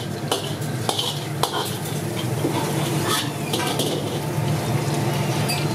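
A perforated steel ladle scraping and clinking against an iron kadai as it stirs paneer pieces deep-frying in hot oil, several clinks and scrapes over a steady sizzle. A steady low hum runs underneath.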